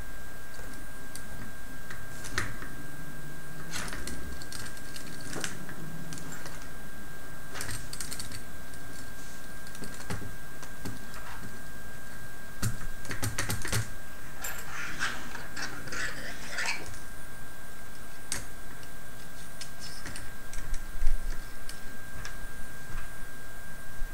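Small plastic parts clicking and rattling as orange plastic wheels are handled and pushed onto the axles of a robot tank chassis: light, irregular clicks, with a busier patch of clatter in the middle and one louder knock near the end.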